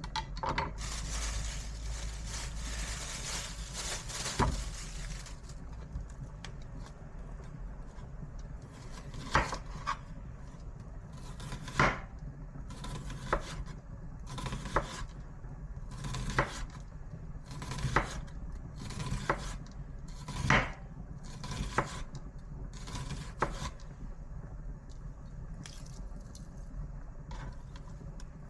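Kitchen utensils knocking and clinking against dishes: a string of separate sharp knocks about a second apart, after a few seconds of hiss at the start.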